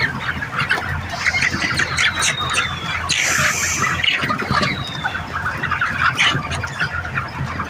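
A large flock of Golden Misri chickens squawking and clucking in a dense, continuous chatter of overlapping calls. A few thin, falling whistled calls cut through it.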